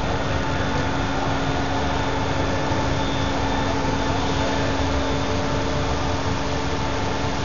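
Electronic bridge saw running steadily, its diamond blade cutting a stone countertop slab: an even rush with a few held tones, unchanging throughout.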